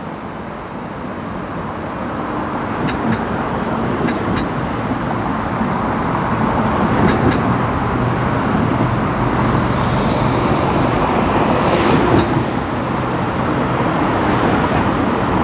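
Steady motor-vehicle and engine noise of busy traffic, growing louder over the first few seconds and then holding, with a few faint knocks and no breaker hammering.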